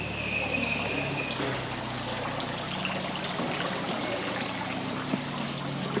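Running water trickling steadily, a continuous even splash with no break. A thin high steady tone sits over it for about the first second and a half.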